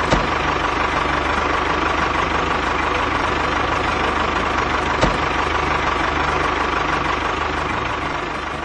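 Tractor engine running steadily with a fast, even chug, with a short click just after the start and another about five seconds in; it fades a little near the end.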